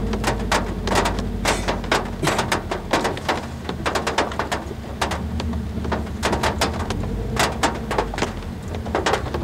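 Raindrops and large drips from overhead power lines hitting the metal roof of a Subaru Impreza, heard from inside the cabin as loud, irregular metallic knocks, several a second. Under them runs the car's steady low engine hum.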